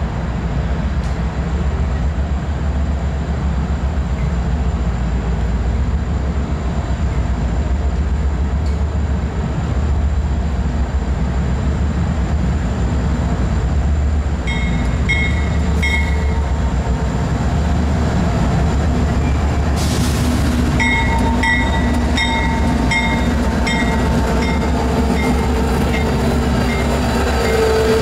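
Power move of about nine CSX diesel locomotives running light, approaching and rolling past with a steady low engine rumble. From about halfway on, a rhythmic metallic clicking of wheels over the rail joints joins in as the units pass.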